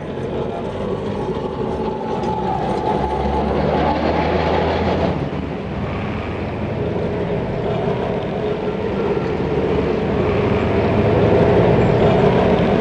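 Electric street tram running on its rails: a steady rumble of wheels on track with a whine that gets louder toward the end as a car passes close.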